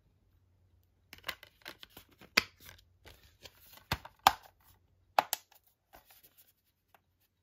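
Metal 4K steelbook case being handled: clicks, taps and scraping as the case is snapped shut and knocked against a metal box, with a few sharp clicks among the rustling.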